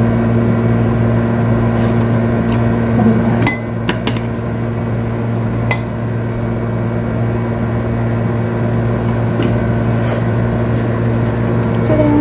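Steady electrical hum of a kitchen appliance: a low drone with a higher tone above it. A few light clicks and clinks, likely the frying pan being handled, come between about three and six seconds in.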